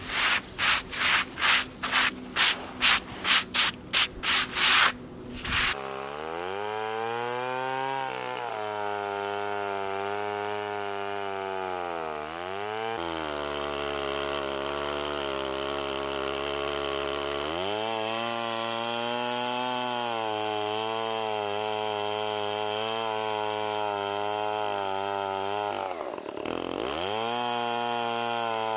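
A quick series of about ten rasping strokes, roughly two a second. Then a Stihl 090 chainsaw engine running steadily, its speed dropping for a few seconds near the middle, rising again, and dipping briefly once more near the end.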